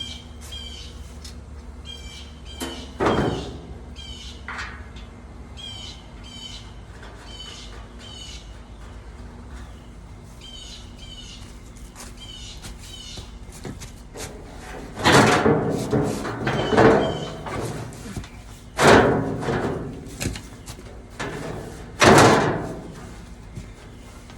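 Hammer blows on a sheet-metal tractor muffler, about five heavy strikes each with a short ring: one a few seconds in and four spaced out in the second half, as the muffler is beaten to widen it. Small birds chirp repeatedly throughout.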